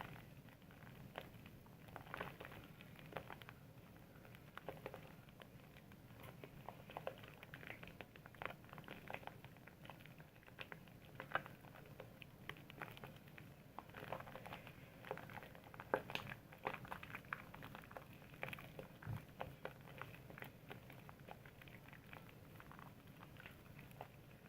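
Soap being lathered: faint, irregular wet squishing and crackling of foam, with many small pops and clicks and a slightly sharper one about sixteen seconds in.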